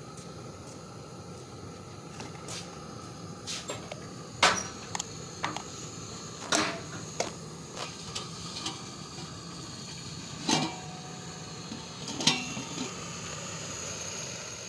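Stainless steel pot, lid and spoon clinking against each other: a string of sharp metallic clinks with a brief ring, the loudest about four and a half seconds in and others near seven, ten and a half and twelve seconds, over a steady background hiss.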